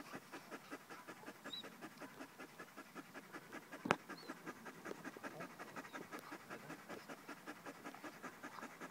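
German shepherd puppy panting quickly and evenly, about five breaths a second. A single sharp click cuts in about four seconds in.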